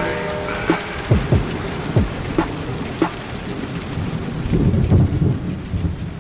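Rain falling steadily, with scattered close drops splashing, and a low rumble of thunder about four and a half seconds in.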